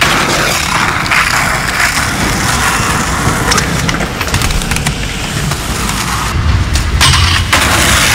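Skateboard wheels rolling over rough concrete, a loud continuous gritty rumble with a few sharp knocks.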